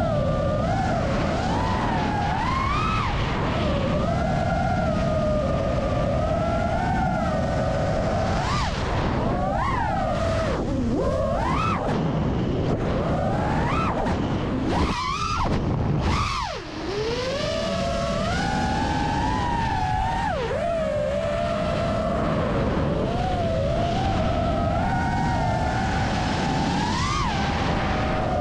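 Whine of an FPV freestyle quadcopter's iFlight Cyber Xing 2207.5 1777kv brushless motors and propellers, pitch rising and falling constantly with the throttle. About sixteen seconds in, the whine drops away briefly and then climbs again.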